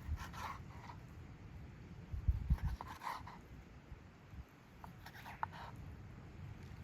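A knife slicing through food on a cutting board: a few short scraping strokes, with a couple of low knocks a little over two seconds in.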